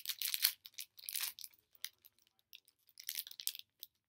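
A small blind-bag wrapper being torn open and crinkled by hand, in irregular crackly bursts that stop for about a second partway through, then start again.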